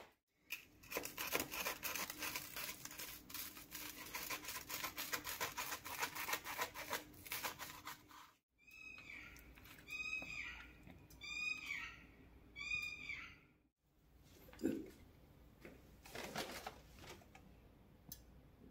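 Toasted sandwich being cut with a knife: a dense run of crisp crunching crackles for about eight seconds. Then four short high chirps about a second apart, and two soft knocks near the end.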